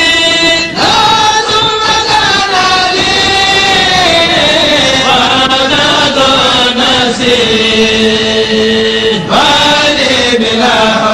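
Kourel religious chanting of Arabic devotional verses: voices sing long, ornamented held notes. The melody slowly descends through the middle and settles on a held note, with a short break before a new phrase begins near the end.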